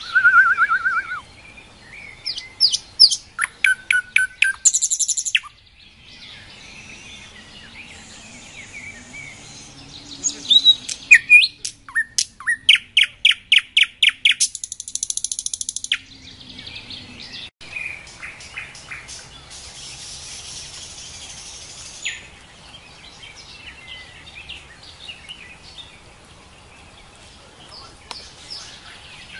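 Nightingale singing: separate phrases of fast repeated clicking and whistled notes and short trills, divided by pauses. The loudest phrases come about 2 to 5 s and 10 to 16 s in, and the later half holds only fainter notes.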